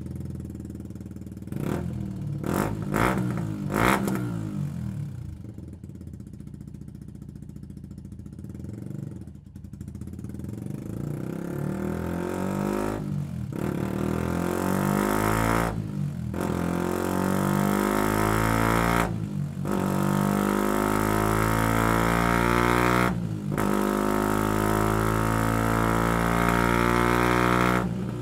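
Benelli BN 125's single-cylinder four-stroke engine through a Scorpion stainless full exhaust with RedPower silencer, on a dyno. It idles with a few quick throttle blips, then makes a long run with the revs climbing, broken four times by brief cuts as gears are changed. It gets louder toward the end before easing off.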